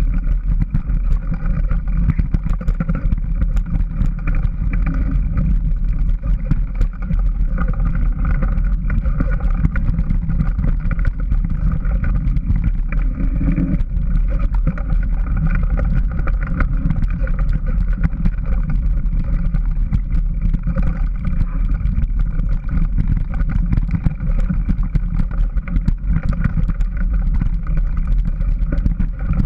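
Wind rushing over the microphone of a camera riding a bike fast down a rough dirt trail, with continual rattling and small knocks from the bike and tyres over the bumpy ground.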